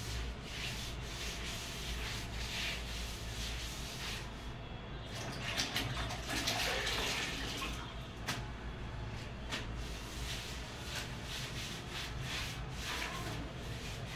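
A floor cloth being rubbed by hand over a concrete floor, in repeated scratchy wiping strokes, with a louder stretch about halfway through. A steady low hum runs underneath.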